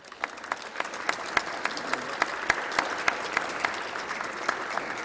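Deputies in a parliamentary chamber applauding, with some louder claps standing out in a steady beat of about three to four a second over the general applause.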